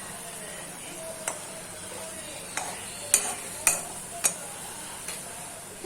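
Marinated chicken frying in ghee in a pan: a steady sizzle, with a cooking utensil stirring it and knocking against the pan about six times, loudest a little past the middle.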